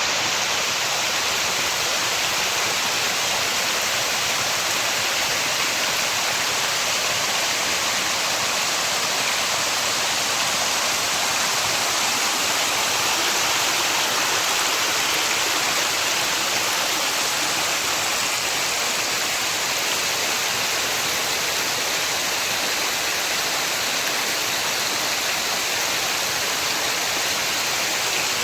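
A small mountain stream rushing steadily over rocks: a constant, even rush of water.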